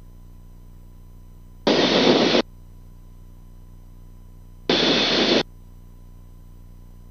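Two bursts of radio static on the aircraft's VHF radio feed, each under a second long and about three seconds apart, starting and stopping abruptly over a faint steady hum.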